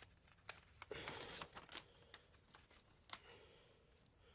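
Faint rustling and handling of old paper as the pages of a worn manual are turned, with a few small clicks and taps.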